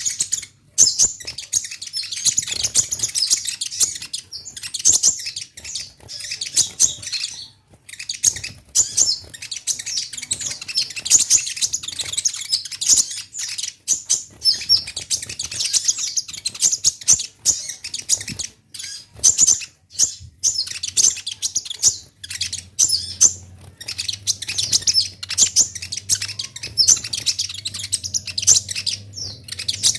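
Kolibri ninja sunbird (konin) singing continuously: rapid, high-pitched chirping and twittering phrases with brief pauses every few seconds.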